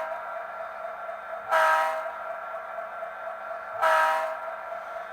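Two short horn blasts about two seconds apart, each a chord of several steady pitches lasting about half a second, just after the tail of an earlier blast ends at the start; a faint steady hum runs underneath.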